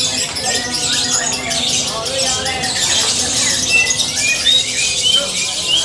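Lovebird's long unbroken high-pitched chattering song (the 'ngekek' trill judged for its duration), with a few short rising chirps near the end. Voices talk in the background.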